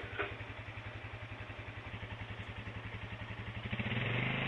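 A vehicle engine running with a fast, even pulse, growing louder near the end as it comes closer.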